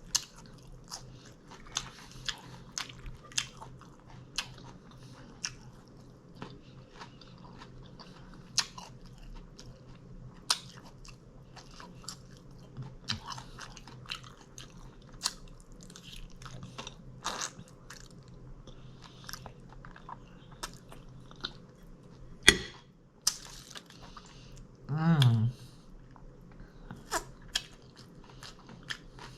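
A person eating taco salad close to the microphone: crunchy bites and chewing, a run of sharp crackles and clicks, with one loud crunch a little past two-thirds of the way through. Shortly after it comes a brief hummed "mm" that falls in pitch.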